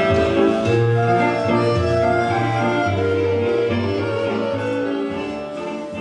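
Instrumental music from a stage musical's score, with many held notes, growing quieter over the last second or so.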